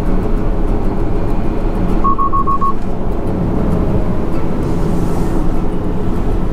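Steady road and tyre rumble inside a moving Tesla Model X's cabin. About two seconds in, a quick run of five short high beeps from the car's alert chime sounds.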